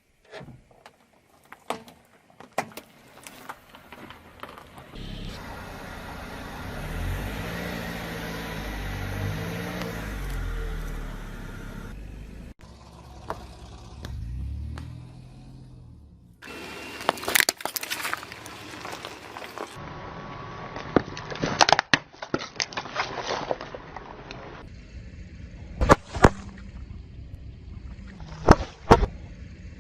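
A car's engine running as it rolls slowly forward, then a series of sharp cracks and snaps as objects are crushed under its tyres, in several separate takes.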